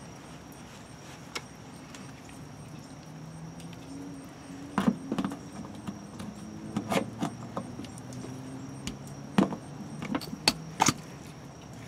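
Sharp metallic clinks and knocks of a hand tool on brass fittings as a new RV city water inlet valve is tightened onto its brass nipple. They are scattered and irregular and begin about five seconds in.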